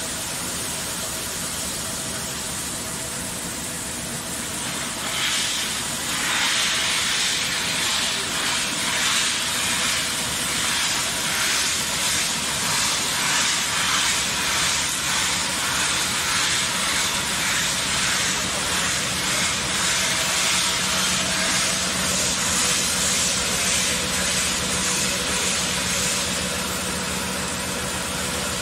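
DX2030 beam end face milling machine running, with a steady machine hum and tones. About five seconds in, the milling cutter bites into the end of the steel box beam, and a louder hissing cutting noise with an even pulsing sets in. It eases off again near the end.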